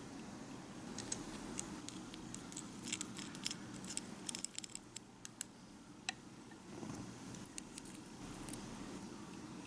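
A tiny metal spoon clinking against a miniature glass bowl as a sauce is stirred: a quick irregular run of light clicks, then a few more taps near the end as the spoon scoops from a small dish.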